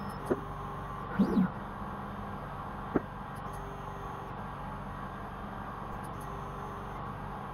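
Stepper motors of a Core XY CNC machine moving its probe head, with a short rising-and-falling whine about a second in and a sharp click about three seconds in, over a steady hum.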